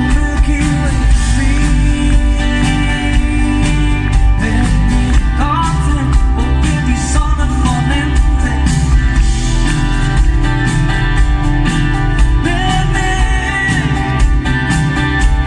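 Live band playing a pop song with guitar and a steady beat, with some singing in it.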